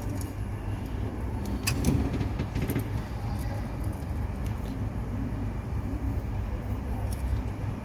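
Steady low rumble of background noise, with a few light clicks and taps a little under two seconds in and again near three seconds.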